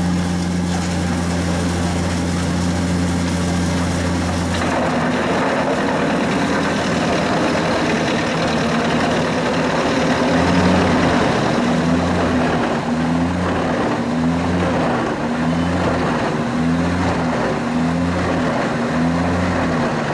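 Jenz HEM 561 Z wood chipper running with a steady hum, then chipping logs from about five seconds in, where the sound turns harsh and rough. Later the machine's low note pulses about once a second as it works through the wood.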